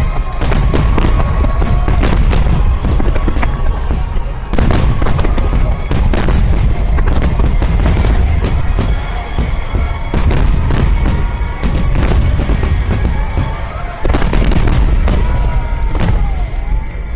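A dense, continuous barrage of aerial firework shells bursting: deep booms overlapping with sharp cracks, with fresh heavy volleys about four and a half, ten and fourteen seconds in. Music plays underneath.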